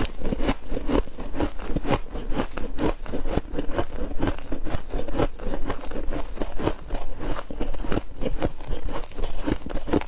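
Crunching of fluffy freezer-frost chunks: dense, irregular crackly crunches, several a second, with no let-up.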